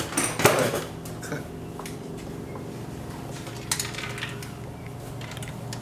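A few light metallic clinks and knocks of tools and parts being handled, over a steady low hum.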